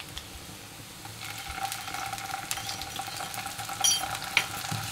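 Sliced onions sizzling in hot oil in a kadai as ginger-garlic paste is scraped in and stirred; the sizzle grows louder about a second in. A ringing metal clink and a sharp tap come near the end.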